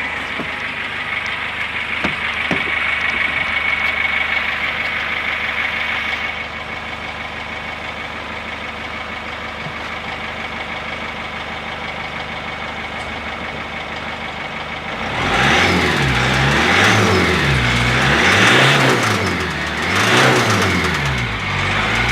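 Cummins ISF 2.8 four-cylinder turbo-diesel in a GAZelle Next idling steadily, then revved up and down about four times in quick blips from about two-thirds of the way in. The revving is done to bring out an engine knock.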